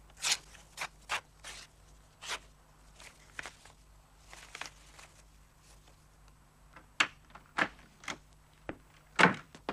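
Paper envelope being torn open by hand and a stiff card slid out, in short irregular rips and crackles with a louder rustle near the end.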